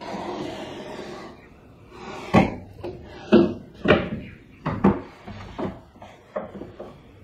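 A series of sharp knocks and bangs, about six in a few seconds, after a stretch of dull rustling handling noise: things being moved and set down around a room, like cupboard doors or drawers being shut.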